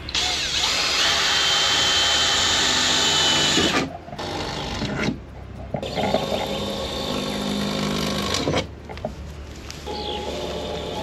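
A power tool running in four separate runs, stopping and restarting between them. The first run is the longest and loudest and carries a steady high whine.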